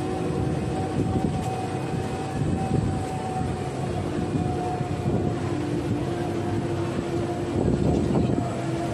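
Steady engine rumble of a vehicle being ridden, with a constant whine over it as it rolls along.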